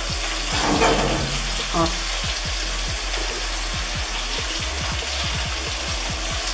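Potatoes frying in hot oil in a pan, a steady sizzle throughout, with brief voices about a second in.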